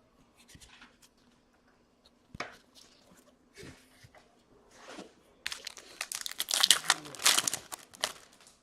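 A trading-card pack wrapper is torn open and crinkled, with a dense run of crinkling from about five and a half seconds in until just before the end. Before it come a few scattered rustles and clicks of cards being handled.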